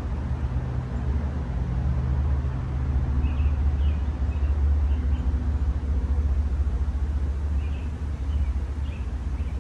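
Wind buffeting the microphone, a low rumble that rises and falls in quick gusts, with faint bird chirps now and then.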